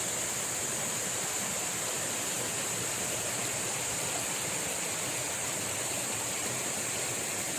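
Steady rainforest ambience of rushing stream water, even and unbroken, with a constant high hiss above it.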